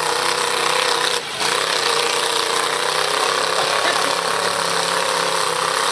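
Demolition derby car engines running loud and steady, their pitch wavering up and down as they rev, with a brief dip about a second in.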